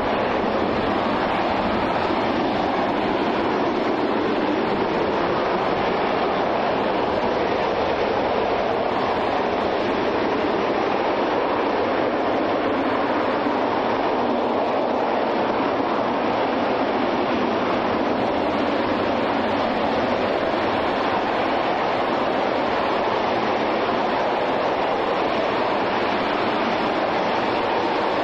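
RS-25 liquid-hydrogen, liquid-oxygen rocket engine firing at steady thrust during a static test fire: a continuous, even exhaust noise with no change in level.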